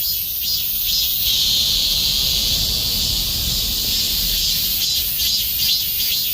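Korean robust cicada (Hyalessa fuscata) singing loudly. Its rhythmic pulsed calls, about three a second, merge about a second in into one continuous high buzz, then break back into pulses near the end.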